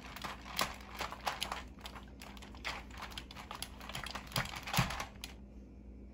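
Hard plastic toy pieces clicking and knocking as a small child handles them: a quick, uneven run of taps that stops about five seconds in.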